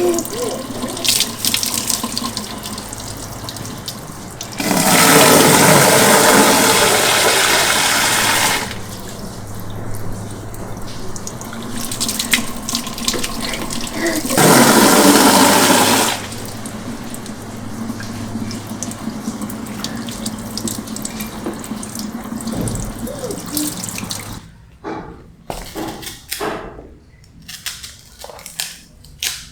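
Tap water running into a sink during dishwashing, with small knocks and clinks; twice the water gushes loudly, for about four seconds and then about two seconds. Near the end the water stops and only separate knocks remain.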